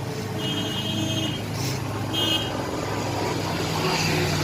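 A motor vehicle's engine running steadily close by, growing louder, with two short high-pitched tones: a longer one early and a brief one about two seconds in.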